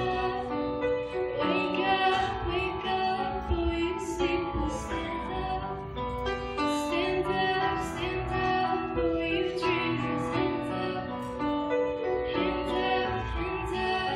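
A girl singing while accompanying herself on a grand piano, some notes held with a wavering vibrato over steady piano chords.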